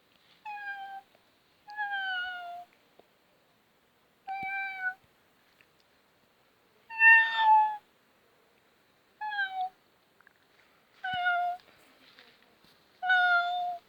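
A series of seven short meows, each about half a second long and falling slightly in pitch, with the loudest about seven seconds in.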